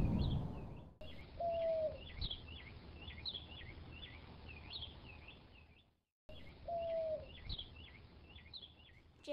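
Birdsong ambience: small birds chirping in a quick repeating pattern, with one lower whistled note. The same short recording breaks off about six seconds in and starts over.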